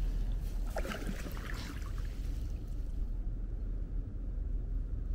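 Paddle strokes from a folding kayak: two light splashes in the first two seconds, over a steady low rumble.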